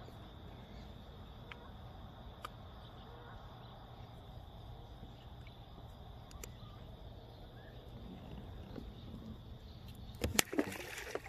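Insects trilling steadily as one high thin tone over a low, even background hum. Near the end come a few sharp, loud knocks and clatters.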